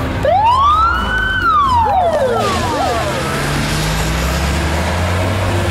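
Police car siren giving a single wail: it climbs in pitch for about a second, then slides back down over the next second and a half. A steady low hum runs underneath.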